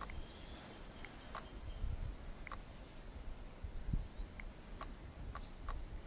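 A Lazuli bunting gives a song phrase of four quick, high, descending chirps about a second in, then a single high note near the end. A low rumble runs underneath.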